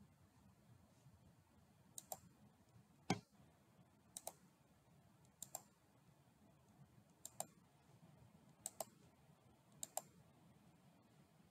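Faint computer mouse clicks: about six pairs of quick clicks spread through, and one louder single knock about three seconds in, over low room hiss.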